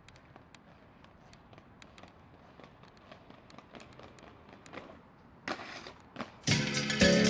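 Inline skate wheels rolling faintly over a concrete sidewalk, with a steady run of small clicks. About five and a half seconds in comes a short louder scrape from the skates, and music cuts in about a second later.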